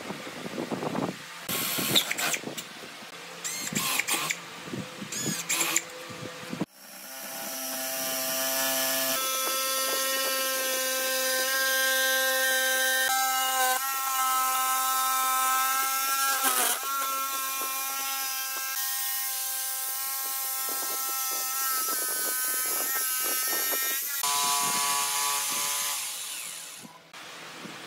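Handheld electric jigsaw cutting a curved outline in a wooden board: a steady motor whine with a buzzing blade that starts about seven seconds in, dips briefly around halfway and drops in pitch shortly before it stops near the end. Before it come clicks and knocks of bar clamps being ratcheted tight and the board being handled.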